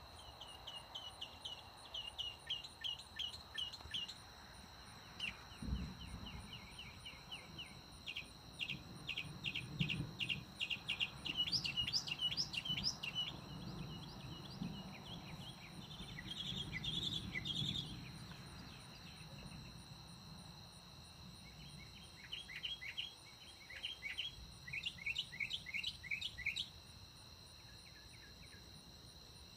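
A low rumble of distant thunder swells and fades through the middle, under a steady high drone of night insects. A bird sings in rapid runs of chirps in several bouts.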